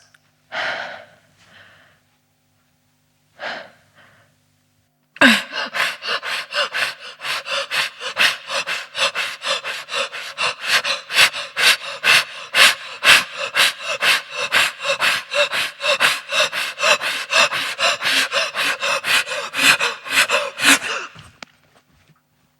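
A person breathing: a few single audible breaths, then from about five seconds in, rapid, loud panting of about three gasping breaths a second, which stops abruptly near the end.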